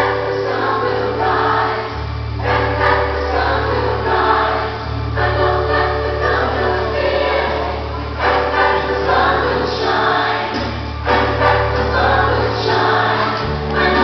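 Choral music: a choir singing over instrumental accompaniment, with held bass notes that change every couple of seconds.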